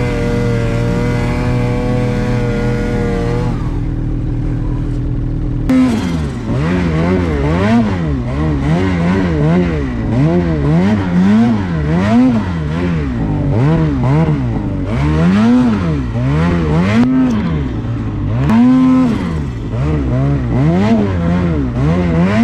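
Two-stroke snowmobile engine running at a steady pitch, then, after an abrupt change about six seconds in, revving up and down repeatedly, rising and falling roughly once a second.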